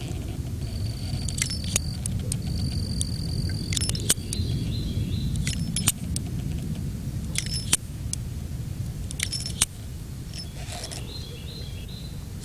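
Single-action revolver being reloaded by hand: sharp metallic clicks, mostly in pairs, about every one and a half to two seconds as the cylinder is turned and worked at the loading gate, over a low steady outdoor rumble.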